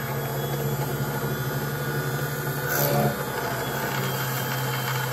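Small benchtop drill press motor running steadily while its 2 mm bit is fed down to drill a hole through an aluminium truck chassis rail; it gets briefly louder about three seconds in.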